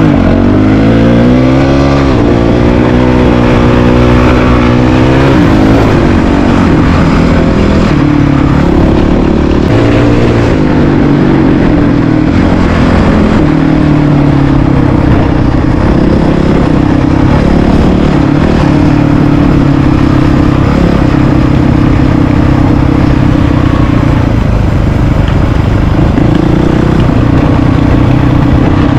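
Honda CRF450RL's single-cylinder four-stroke engine heard from the rider's own bike on the move, its pitch climbing and dropping through several rev changes in the first six seconds or so, then running at a fairly steady speed.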